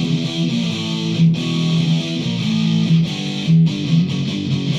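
1982 USA Fender Bullet S-2 electric guitar with single-coil pickups, played through a Joyo Extreme Metal distortion pedal into a Marshall Origin 50 amp: a heavily distorted metal riff, played continuously with a few brief breaks between phrases.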